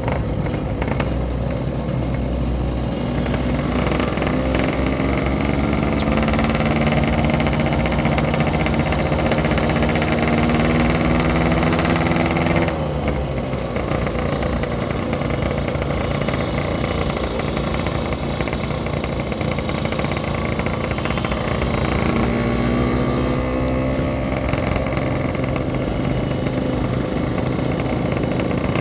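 Yamaha RX-King's 135 cc two-stroke single-cylinder engine running as the motorcycle rides along, its pitch climbing slowly for about twelve seconds, dropping suddenly as the throttle is eased, then rising again in the last few seconds.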